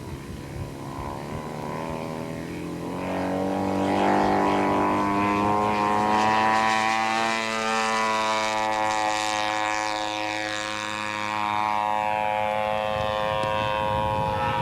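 Engine of a giant quarter-scale RC F8F Bearcat model in flight, with its propeller. The pitch climbs and the sound grows louder over the first few seconds, then it runs nearly steady.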